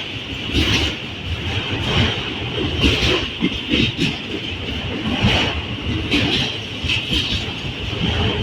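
Freight train cars rolling past, their wheels knocking over rail joints at uneven intervals, with a steady high-pitched whine underneath.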